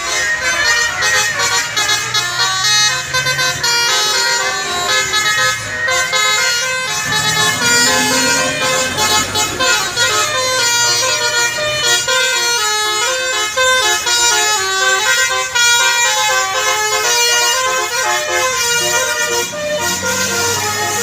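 Bus 'telolet' musical air horn (Basuri multi-trumpet horn) playing a long melody of short notes that step up and down in pitch, sounding on and off through the whole stretch.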